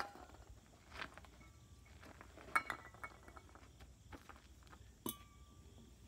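Metal aerosol cans and a torch gas cylinder clinking and knocking as they are picked up off a steel frame and set down, about four knocks, the loudest about two and a half seconds in, some with a short metallic ring.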